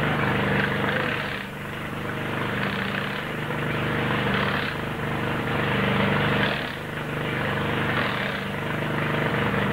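An engine running steadily, a low drone with a hiss over it, dipping briefly twice.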